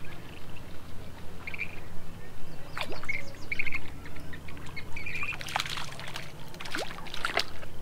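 Birds chirping in short repeated phrases. In the second half come several sharp splashes at the water surface as a hooked fish thrashes beside the boat.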